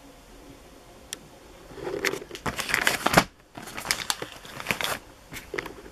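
Clear plastic wrapping on a retail pack of firework rockets crinkling as the pack is handled, in two spells of a second or so with a short pause between and a brief last rustle near the end.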